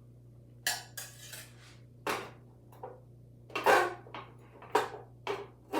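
Metal serving utensils clinking and scraping against a plate and pot while food and sauce are served: a run of about eight or nine sharp, irregular clinks.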